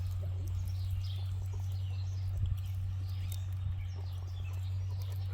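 Outdoor ambience: a steady low rumble with faint bird chirps and a couple of soft clicks.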